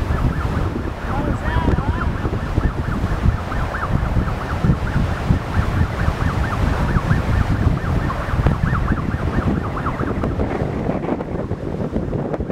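Wind buffeting the microphone: a heavy, gusty rumble. Over it runs a fast, steady series of short high chirps, several a second.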